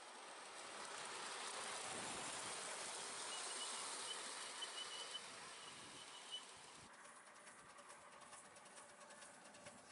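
Outdoor ambience: a steady hiss with a short run of faint, high bird chirps about three to five seconds in. Faint rapid ticking in the last three seconds.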